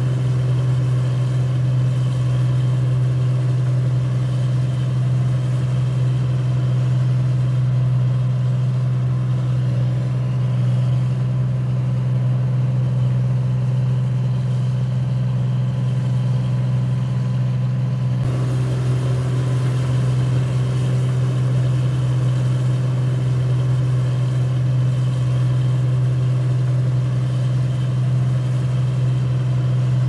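A machine's motor running with a steady, unchanging low hum; its upper tone shifts slightly about eighteen seconds in.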